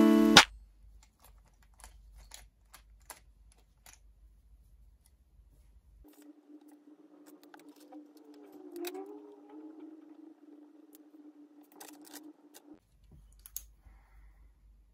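Faint small taps and clicks of pens and paper being handled on a desk, after guitar music cuts off about half a second in. A faint steady hum comes in about six seconds in and stops again about two seconds before the end.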